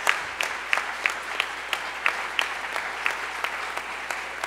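Audience applauding, with one loud clapper near the microphone standing out at about three claps a second; the applause slowly thins toward the end.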